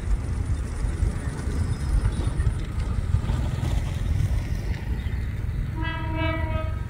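Diesel railcars running with a steady low rumble as a second railcar comes in on the passing track. About six seconds in, a railcar horn sounds one short blast.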